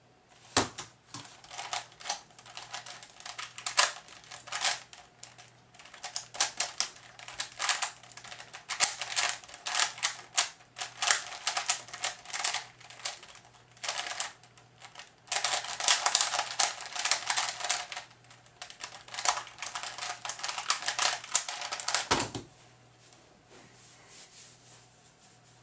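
A Type A 3x3 speedcube turned rapidly by hand through a timed solve: a fast, uneven clatter of plastic layer turns with a few short pauses. It starts with a sharp click about half a second in and stops with a sharp knock a few seconds before the end.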